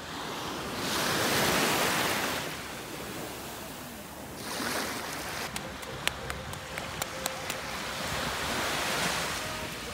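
Small waves breaking and washing up the sand at the water's edge, the wash swelling three times: about a second in, near the middle, and near the end. Sharp little ticks come through in the second half.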